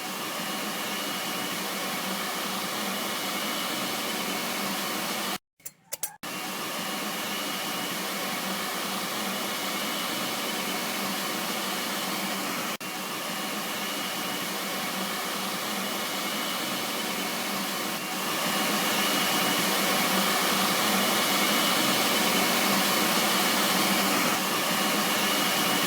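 Steady whirring noise of a small motor blowing air. It cuts out briefly about five seconds in and gets a little louder from about eighteen seconds in.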